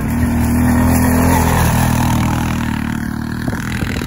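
ATV (quad) engine running under throttle as it drives close by through corn stubble. It is loudest about a second in and gradually fades after that.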